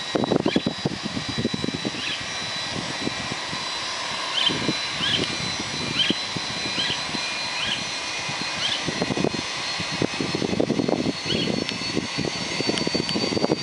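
Steady high whine from the parked Jetstar Airbus A320's auxiliary power unit, with an irregular low rumble underneath. A series of short, evenly spaced chirps comes in midway and again near the end.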